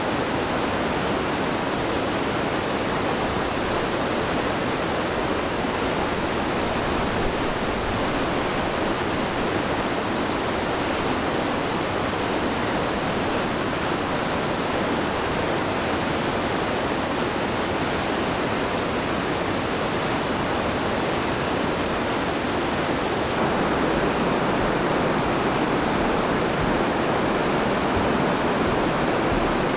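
Rushing white water of mountain river rapids below a waterfall: a loud, steady noise of water. About three-quarters of the way through the sound turns duller, with faint regular ticks over the rush.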